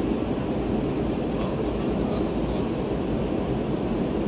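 Steady, low cabin roar of a Boeing 717 airliner in flight, from its two rear-mounted turbofan engines and the air rushing past the fuselage.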